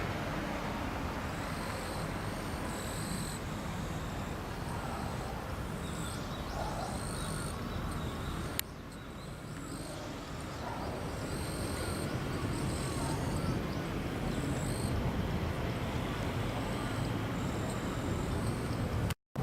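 Outdoor ambience: a steady low rumble with short high-pitched animal calls coming and going, broken by a click and a sudden drop in level about nine seconds in.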